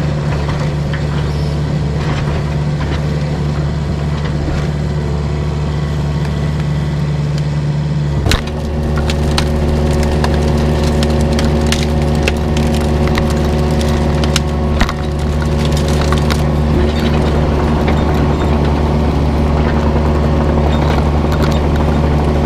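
Excavator's diesel engine running steadily as the bucket drags and pushes brush, with branches and tree tops cracking and snapping, mostly from about 8 seconds in.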